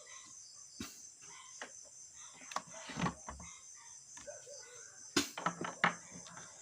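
Crickets chirping steadily in the background, with a few scattered clicks and light knocks.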